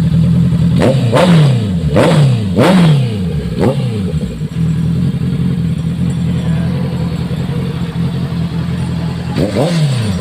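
Honda CB650R's inline-four engine idling, its throttle blipped four times in quick succession, about one a second, each rev rising and dropping straight back; it then idles steadily before two more quick blips near the end.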